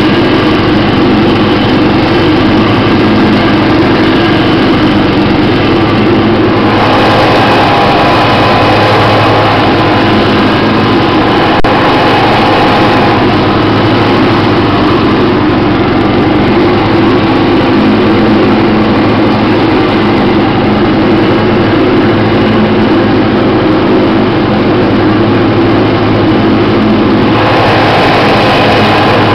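A 1990 MTD lawn tractor's 12 HP Briggs & Stratton Industrial/Commercial engine running steadily and loudly while mowing grass, with the cutting deck engaged. The sound grows brighter and harsher for several seconds starting about seven seconds in, and again near the end.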